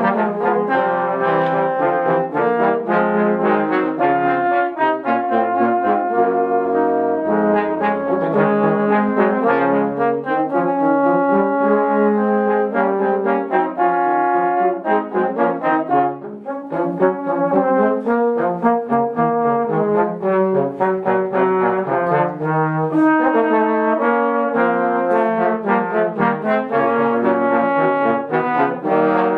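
Trombone quartet playing together in harmony, four slide trombones moving between held chords and shorter notes. The playing dips briefly about sixteen seconds in, then goes on.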